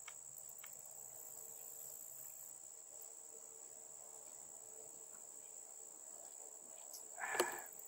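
Crickets singing, a steady high-pitched trill, with one brief knock near the end.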